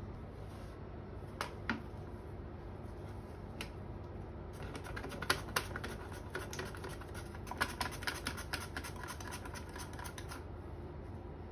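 Radish being sliced on a plastic handheld mandoline: a quick run of crisp clicks and scrapes as it is pushed back and forth over the blade, starting about four seconds in and stopping shortly before the end. Before that, a few single knife cuts click on a plastic chopping board, over a steady low hum.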